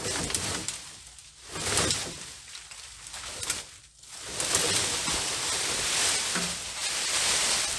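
Rustling, crackling noise of brush and a tangled grapevine being pulled and handled, easing off briefly twice.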